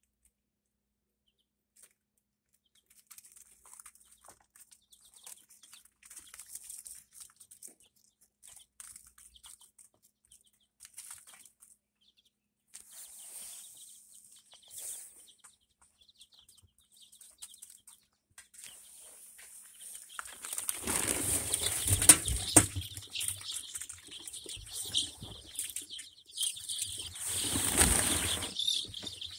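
Young ISA Brown chicks: faint scattered peeping and rustling, then louder bursts of wing flapping about two-thirds of the way through, loudest twice.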